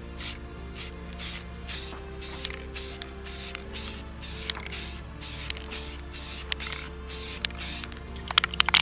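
Rust-Oleum aerosol spray can of gloss enamel paint spraying in short hissing bursts, about two to three a second: quick passes laying a very light first coat on a plastic motorcycle fairing. A quick run of sharp clicks near the end.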